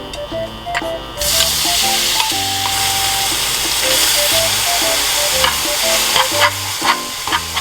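Food sizzling as it cooks in a hot pan: a steady hiss with scattered crackles and pops that starts suddenly about a second in. Light background music plays throughout.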